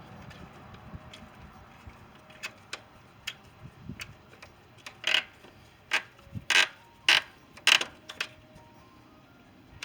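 Sharp metallic clicks and taps from hand work on a hose clamp and fuel hose, scattered at first and then loudest and closest together for about three seconds in the second half.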